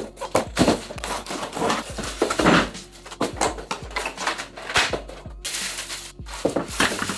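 Cardboard packaging and plastic-bagged chair parts being handled during unpacking: irregular rustling, crinkling and light knocks.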